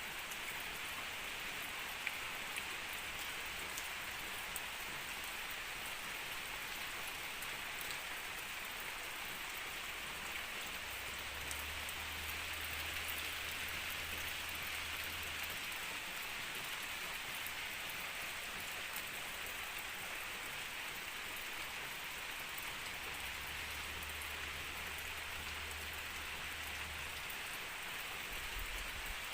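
Steady rainfall, an even unbroken hiss of many drops. A faint low rumble comes in twice, about a third of the way in and again about three quarters of the way in.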